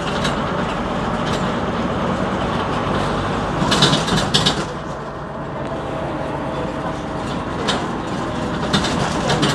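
Scania NewOmnicity city bus heard from inside the passenger cabin: engine running steadily under the cabin noise, with a short burst of knocks and rattles about four seconds in and single clicks near the end.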